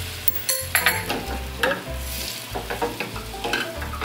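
Beaten egg sizzling as it is poured into a hot oiled frying pan, with a spoon scraping and clinking against the glass bowl it comes from.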